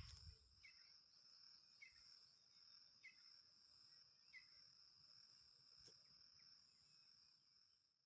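Faint outdoor ambience: a steady high-pitched insect drone, with a bird's short chirp repeated about once a second through the first half.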